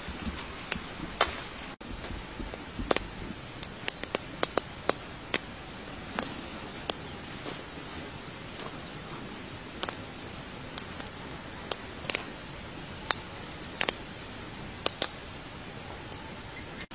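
Open wood fire crackling, with irregular sharp pops and snaps over a steady hiss.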